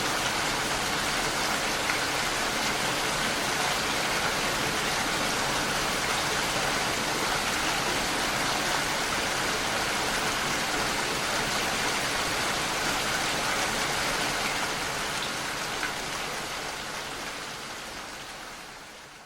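Steady rain, an even hiss of falling drops, fading out over the last few seconds.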